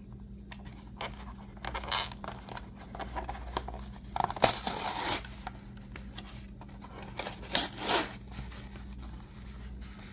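The cardboard backing of a toy car's blister pack is torn open by hand, in a few short ripping bursts. The loudest tear comes about halfway through.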